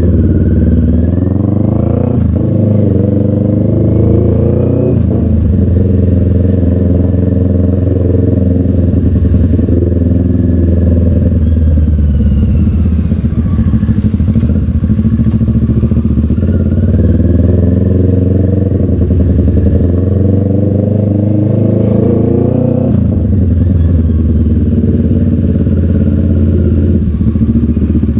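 Motorcycle engine running as the bike is ridden, heard from the rider's seat. Its pitch climbs and drops back several times as the throttle opens and closes: near the start, around two and five seconds in, and again near the end, with steadier running in between.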